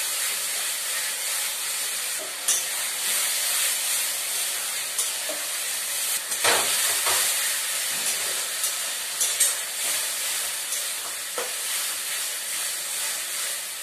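Ground spice paste with onions and tomatoes sizzling and frying in hot oil in a kadai as it is stirred with a spatula. A steady frying hiss runs throughout, and the spatula scrapes the pan now and then: the masala is being fried down (kosha).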